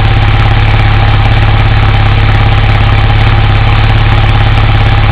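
Toyota 22RE 2.4-litre four-cylinder engine of a 1987 4Runner running steadily with an even low pulse, which the owner suspects of misfiring.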